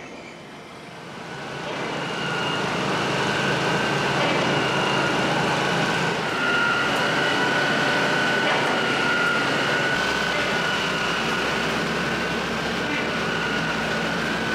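Truck-mounted pump running steadily to pump floodwater out of a flooded basement, a loud, even running noise with a steady high whine on top. It swells in about a second and a half in and then holds.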